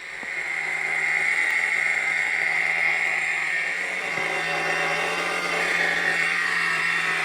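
A radio-controlled car running: a steady, high mechanical drone that comes up over about the first second and then holds, heard through a muffled re-recording of a TV on a phone.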